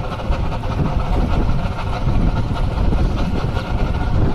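Boat engine running steadily at low speed, with wind rumbling on the microphone.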